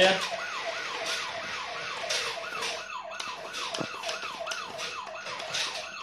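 Electronic toy siren on a remote-control police motorcycle, a fast wail rising and falling in pitch about three times a second, sounding without a break while the bike drives.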